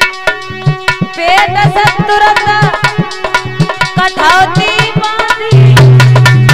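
Indian devotional folk music played live: fast hand-drum strokes over a steady drone, with a wavering melody line through the middle and a loud, deep held note near the end.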